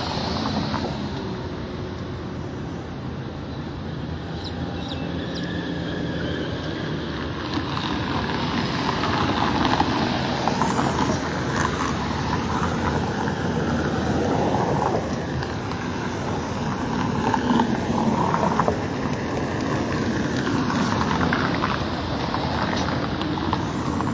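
Road traffic on a city street: cars driving past in a steady rush of noise that swells and eases as vehicles go by.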